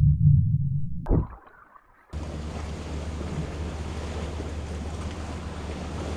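Muffled, low underwater rumble from a submerged camera, dying away about a second in, then a short silence. From about two seconds in, a steady hiss of sea waves washing against a rocky shore, with wind on the microphone.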